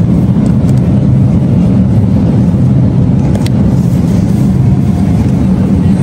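Steady low rumble of an open refrigerated display case's fans and air curtain, blowing close to the microphone.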